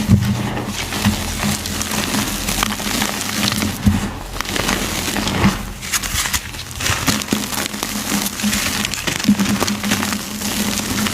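Soft, dusty reformed gym chalk being crushed, a continuous crunching and crumbling full of small crackles.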